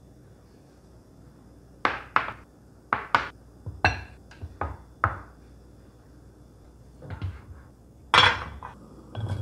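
Tableware being set down: a plate and bowls knocked and clinked onto a wooden cutting board and countertop in a string of sharp knocks. Near the end a stainless steel saucepan is set on a gas stove's grate with the loudest clank.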